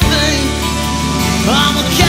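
Background music: a song with a steady bass and a sung line that glides in pitch.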